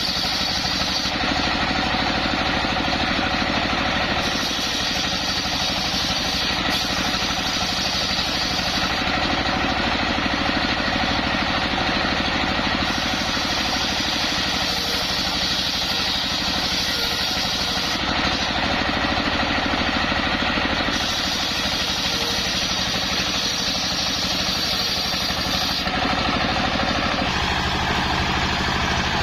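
Engine driving a homemade circular saw, running steadily, with a higher hiss that comes and goes in stretches of four to five seconds.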